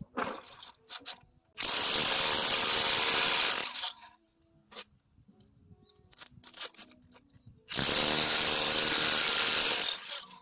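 SDS Plus rotary hammer with a long anchor punch hammering on concrete in two bursts of about two seconds each, the second starting about halfway through, with a few small knocks and clicks between.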